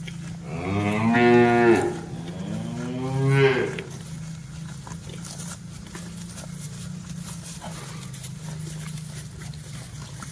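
A cow mooing twice in quick succession, two long loud calls in the first four seconds, the second falling in pitch at its end. A steady low hum runs underneath.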